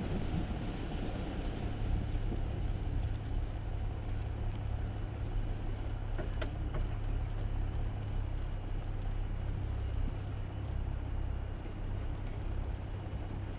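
2023 Jeep Gladiator driving: a steady low engine and road rumble, with a faint click about six and a half seconds in.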